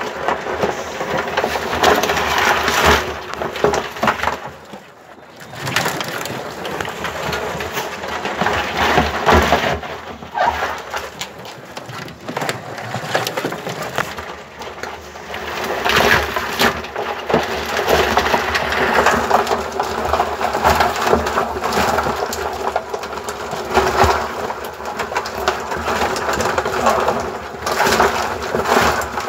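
Live crabs scrabbling in a plastic bucket: a dense clatter of legs and shells scratching and clicking against the plastic and each other, easing off briefly about five seconds in.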